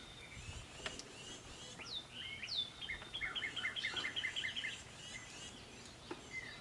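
Wild birds singing: two high whistles sliding downward, then a quick run of repeated two-pitched notes lasting about two seconds.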